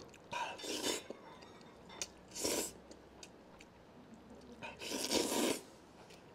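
A person slurping noodles off chopsticks: three loud slurps about two seconds apart, with small wet clicks from the mouth between them.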